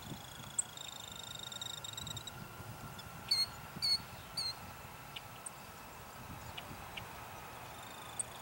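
Distant Airbus A300-600 jet engines giving a faint, steady high whine over a low rumble as the airliner rolls out after touchdown. About three and a half seconds in, a bird calls three times in quick succession, louder than the jet.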